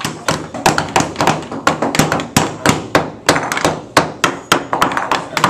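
Several hammers driving nails into wood, sharp irregular strikes overlapping at about three to four a second.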